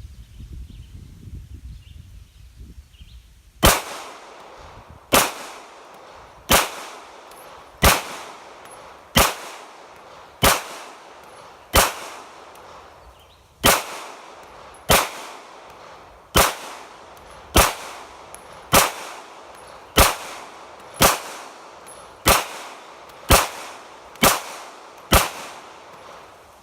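Sig Sauer P320 semi-automatic pistol fired in a steady slow string of eighteen single shots, roughly one every second and a bit, with a short pause after the seventh. The first shot comes a few seconds in, and the pace quickens slightly near the end.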